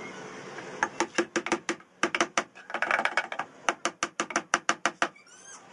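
Claw hammer tapping small nails into a melamine-faced particleboard drawer box: a quick run of light, sharp taps, several a second, with a short break near the two-second mark.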